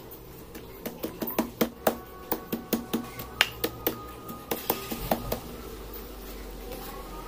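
A quick, irregular run of sharp clicks and taps, about four a second, that starts about a second in and stops a little after the five-second mark.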